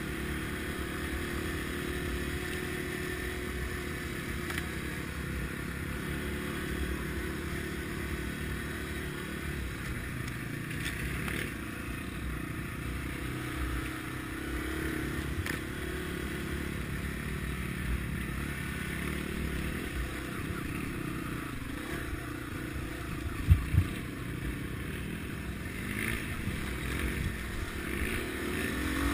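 Dual-sport motorcycle engine running steadily on a dirt trail, heard from the bike itself, mixed with wind and tyre noise. Two sharp knocks come in quick succession about three-quarters of the way through.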